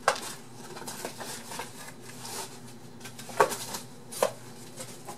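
Rummaging through a cardboard box by hand: cardboard and the items inside rustling and tapping, with three sharp knocks, one right at the start, the loudest about three and a half seconds in, and one just after four seconds.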